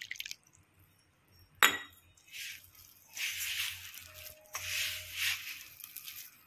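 One sharp metallic clink about a second and a half in, then hands rubbing and squeezing flour and chopped fenugreek against a steel bowl in repeated rustling strokes, working a little added water into the flour.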